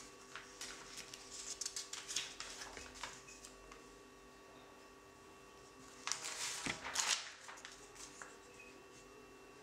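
Paper pages of a zine being turned by hand: two bouts of rustling and crackling, the first over the opening three seconds, the second shorter and louder about six seconds in. A faint steady hum runs underneath.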